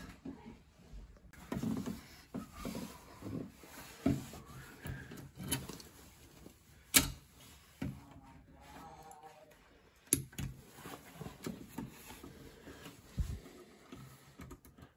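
Small clicks, scrapes and taps of needle-nose pliers working a thermostat wire at the plastic terminal base, with two sharper snaps near the middle as the wire is clipped shorter.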